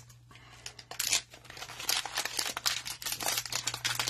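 Plastic wrapper of a 2022 Mosaic football hanger pack being torn open by hand, crinkling and tearing, beginning about a second in and growing denser.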